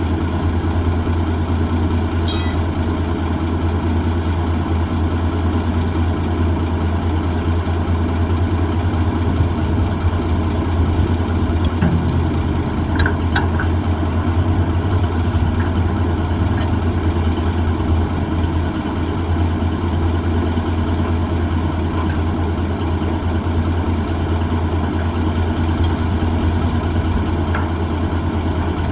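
M816 wrecker's diesel engine running steadily at a low, even speed, with a few faint clicks and knocks over it.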